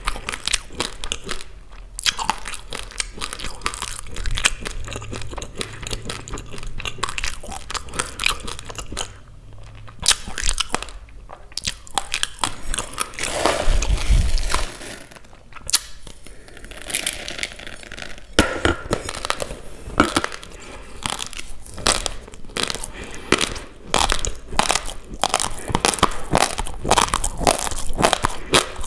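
Close-miked crunching of raw basmati rice grains being chewed, a rapid run of small crisp cracks. About halfway through, a steel spoon scrapes in a plastic bowl for another mouthful, then the crunching resumes.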